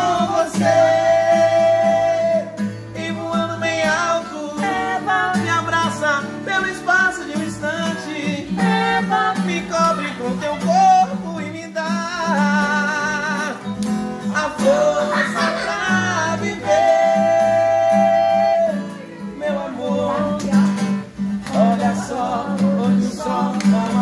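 Acoustic guitar strummed to accompany voices singing a song, with long held notes, one sung with vibrato.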